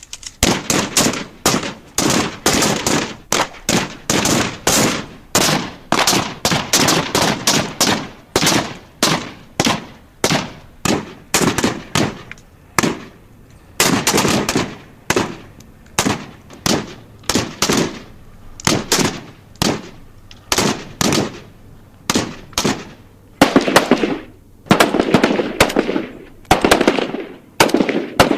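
Gunshot sound effects from a military firearm: a long string of sharp shots, about two to three a second, each with a short decaying tail. Near the end the shots come louder and faster, in tight bursts.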